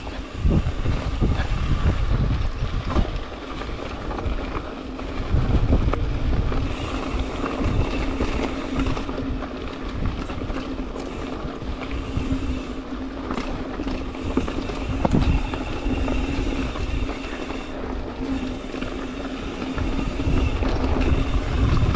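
Mountain bike riding over rough trail, heard from an action camera: wind rumbling on the microphone, tyres rolling, and frequent small knocks and rattles from the bike over bumps.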